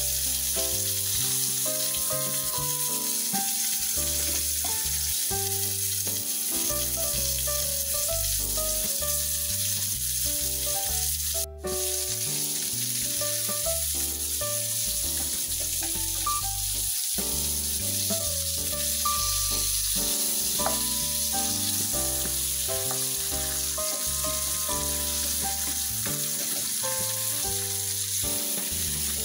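Flour-dredged flounder pieces sizzling steadily in hot oil in a frying pan, with a brief dropout about eleven seconds in.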